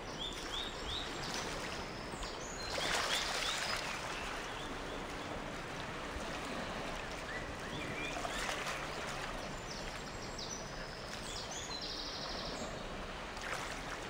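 Steady rush of flowing stream water, with birds chirping now and then in short runs of quick high notes.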